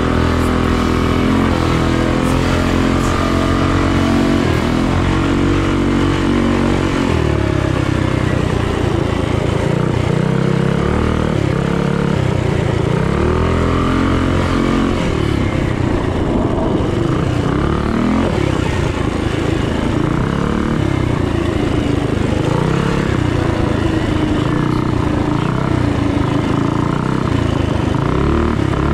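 Minibike's small single-cylinder engine running hard on a dirt track, its pitch rising and falling again and again as the throttle is opened and closed.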